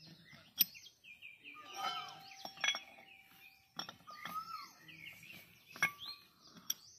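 Birds singing in the background, with several sharp metal clinks as the steel bearing hub and cast pulley of a harvester tension roller are handled and fitted together.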